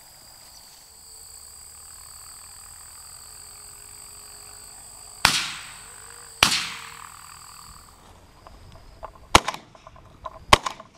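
Shotgun fired four times at doves: two loud shots about a second apart, each trailing off, then two more about a second apart near the end with small clicks between them.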